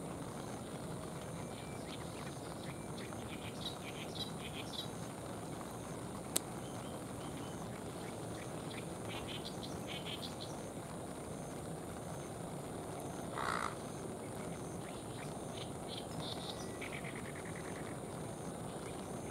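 Steady outdoor hiss with a continuous high-pitched insect buzz and scattered short chirps from small animals, insects or frogs. One short, louder call sounds about thirteen seconds in.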